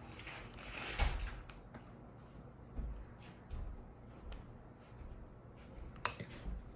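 Fork and bowl being handled: a couple of sharp clinks, one about a second in and one near the end, with a few soft knocks in between.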